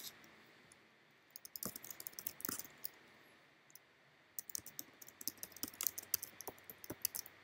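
Typing on a computer keyboard: two runs of quick key clicks, the first starting about a second and a half in, the second from about four and a half seconds in until near the end.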